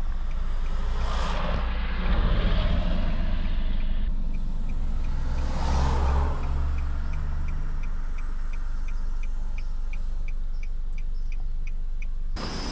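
Road and engine noise from a moving car: a steady low rumble that swells twice. A light, even ticking runs through the second half, a couple of ticks a second.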